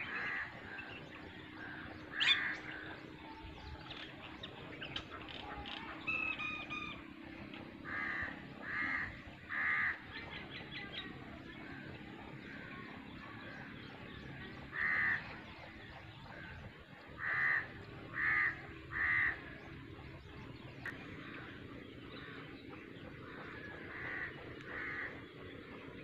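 Crows cawing in short series of two or three calls, with pauses of several seconds between series. Fainter chirps of other birds come in between.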